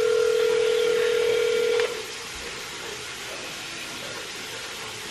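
One ring of a telephone ringback tone, a steady tone lasting about two seconds as an outgoing phone call rings. After it there is a steady low hiss.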